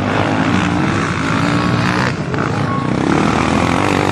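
Motocross dirt bike engines running, with more than one engine pitch heard at once.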